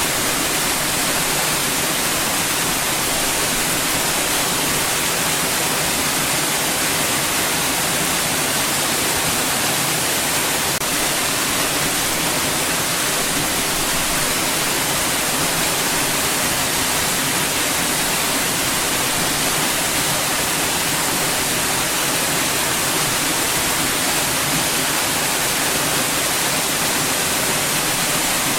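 Steady white noise: an even, unchanging hiss with most of its energy in the high range.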